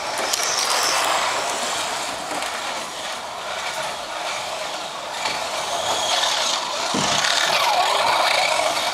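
Slot cars running on a Carrera track: small electric motors whirring and the cars rattling along the plastic lanes. A whine falls and rises again near the end as a car slows and speeds up.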